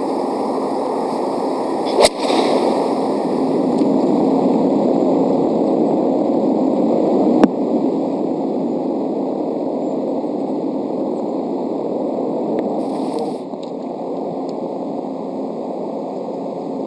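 A golf club strikes the ball on a long fairway approach shot about two seconds in: one sharp crack over steady outdoor background noise. A second sharp knock comes about five seconds later.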